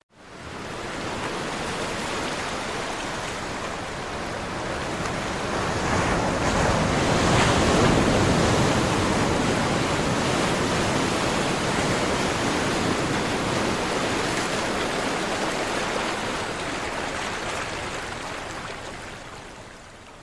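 Sea surf: a wave builds, is at its loudest about seven or eight seconds in, then washes out and slowly fades.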